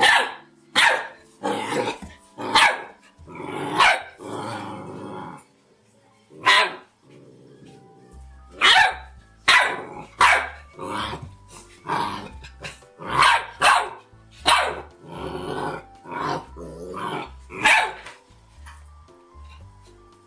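Dog barking over and over: about twenty sharp single barks, roughly one a second, with a short pause before the middle. Soft background music plays underneath.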